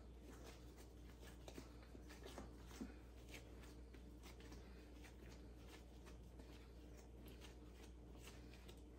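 Faint soft rubbing and light pats of hands rounding a ball of pizza dough on a floured silicone mat, with a few slightly louder taps a second or two in, over a steady low hum.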